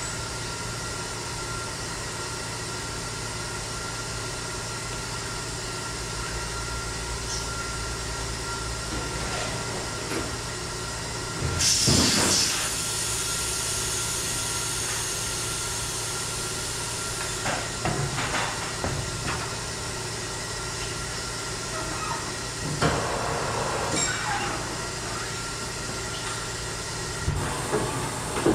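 Compressed air let out with a sudden loud hiss about twelve seconds in, tailing off to a softer hiss for a few seconds, over a steady workshop machine hum. A few short knocks follow as the alloy wheel and tyre are handled on the tyre changer.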